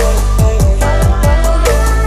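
Electronic background music with a steady beat: deep bass drum hits that drop in pitch several times a second, under a synth melody and ticking hi-hats.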